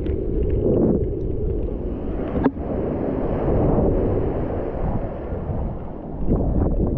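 Strong wind buffeting the microphone over rushing water and waves, with one sharp click about two and a half seconds in.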